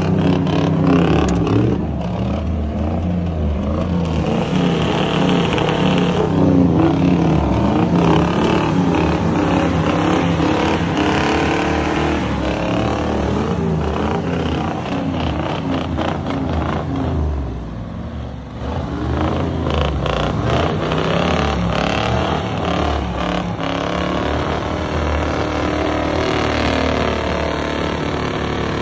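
Diesel truck engines running hard through straight exhaust stacks, loud and continuous, with a brief drop in level about two-thirds of the way through.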